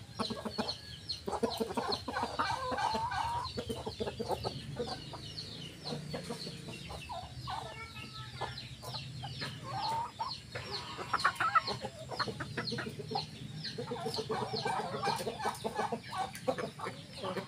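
Free-range village chickens (ayam kampung), hens and a rooster, clucking in short repeated calls that come in clusters, with high thin chirps running throughout.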